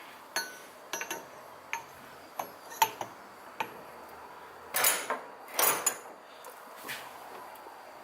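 Small metal shifter parts and tools being handled on a bench: scattered light clinks and knocks, with two longer, louder handling sounds about five and six seconds in.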